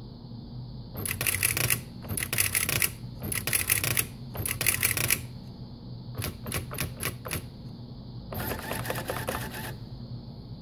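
Xerox 6010 Memory Writer daisy-wheel electronic typewriter printing by itself: four quick rattling runs of print-hammer strikes, then about five single strikes, then a final longer rattle near the end as the paper advances. A steady electrical hum runs underneath.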